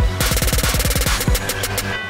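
Electronic dance music with a fast drum roll whose hits come quicker and quicker, cutting off suddenly near the end.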